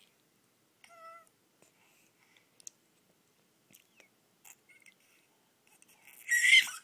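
A baby's short high-pitched coo about a second in, a few soft clicks and taps, then a loud, high-pitched excited squeal near the end.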